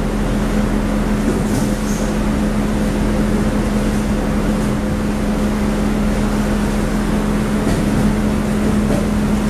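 Cooling fans of a row of LED profile spot fixtures running together: a steady whirring hum with one constant pitch.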